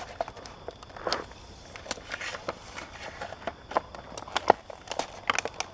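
Box cutter slicing around the plastic blister of a toy package: irregular sharp clicks and crackles of the stiff plastic, with a couple of longer scraping cuts.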